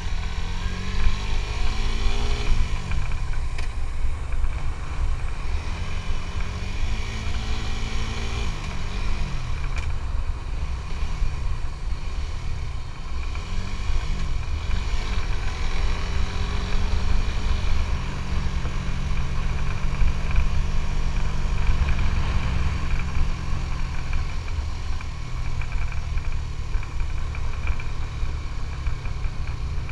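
Suzuki GSX-S150's single-cylinder engine under way, its pitch climbing and dropping again and again through the first half, then holding steadier for several seconds. A heavy low rumble of wind on the microphone runs under it.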